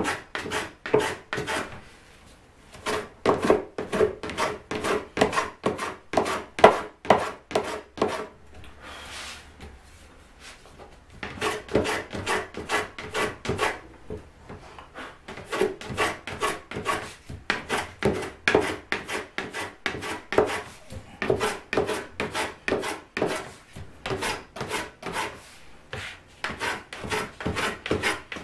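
First-generation Kanai Japanese hand plane shaving a spruce guitar soundboard in quick, short strokes, about three a second, in runs broken by a few brief pauses.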